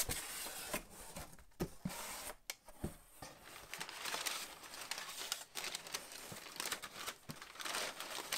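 Crumpled brown kraft packing paper crinkling and rustling as hands dig through it and pull it out of a cardboard box, with a few sharp taps.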